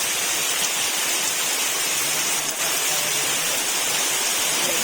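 Very heavy rain pouring down on trees, a dense steady hiss with no let-up.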